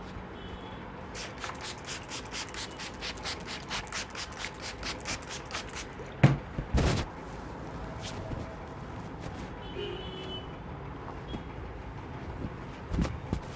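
Hands working the face in quick rubbing strokes, about four or five a second, then a sharp smack and a heavier thump just after the middle.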